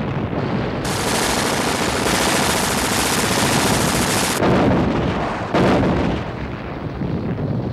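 Battle gunfire: a few seconds of continuous rapid rattling fire, then two loud artillery shots about a second apart.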